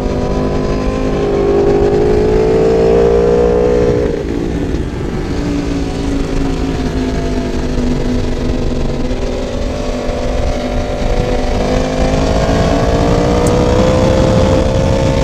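Sport motorcycle engine running at high revs under wind rush, its pitch climbing slowly, dropping about four seconds in as it eases off, then climbing again through the last several seconds.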